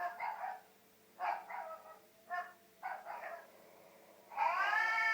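Recorded dog barks played back from a cat-and-dog noise compilation: about five short barks in the first three seconds, then a long drawn-out call near the end.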